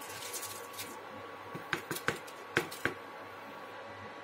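Washed rice tipped from a plastic bowl into boiling milk in a steel kadhai, with a handful of sharp light knocks of the bowl against the pan about halfway through, over a faint steady hiss.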